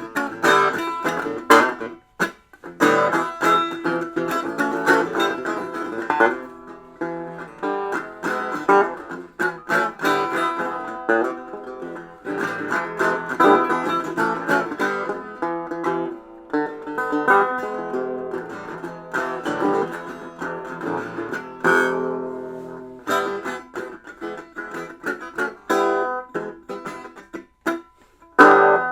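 Plucked string instrument music: a busy run of quickly picked notes, broken by a few short pauses.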